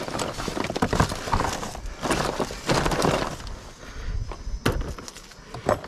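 Hands rummaging through debris in a dumpster: loose scrap pieces clattering and crunching in irregular bursts, with a couple of sharp knocks near the end.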